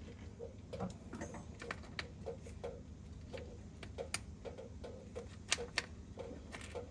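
Faint, irregular light clicks and taps, about two or three a second, as hands handle hoses and plastic fittings in a side-by-side's engine bay.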